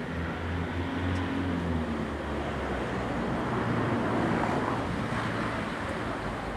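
A boat's engine running at idle, a low hum that fades out after about two and a half seconds, over a rushing noise that swells toward the middle and then eases.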